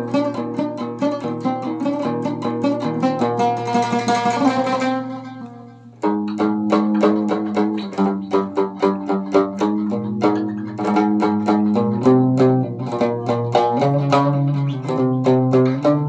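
Music: a plucked Moroccan loutar playing a melody of quick picked notes. It fades out about five seconds in, and a new passage starts abruptly about a second later.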